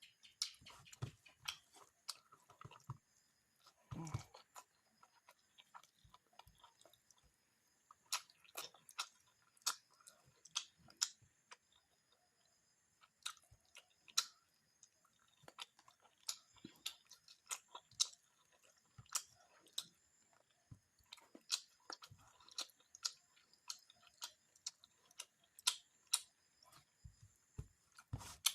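A person chewing and eating fish and rice with curry: irregular, wet mouth smacks and clicks of chewing, with a few louder bites.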